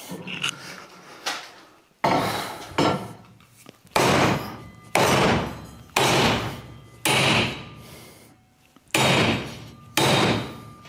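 Hammer blows on a welded joint of anodized aluminium extrusion profiles clamped in a vise: a few light taps, then about seven heavy strikes roughly a second apart, each with a short metallic ring. This is a destructive strength test of the aluminium welds, and the profile bends under the blows.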